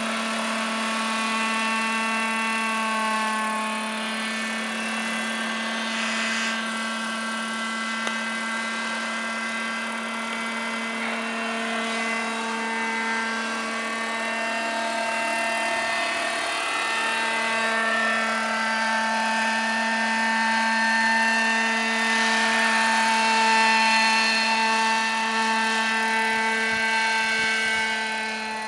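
Petrol-engined radio-controlled scale Robinson R22 helicopter in flight: its engine and rotors give a steady drone of several pitches that swells as the model flies past close, loudest a little over two-thirds through.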